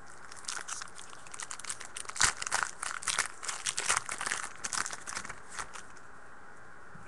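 A trading-card pack wrapper being torn open and crinkled by hand: a run of sharp crackles and rustles lasting about five seconds.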